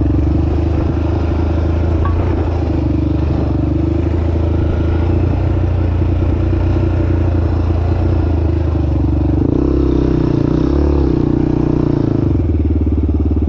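An off-road vehicle's engine running steadily close by, at an even, unchanging pitch like an idle, with a brief change in the note about two-thirds of the way through.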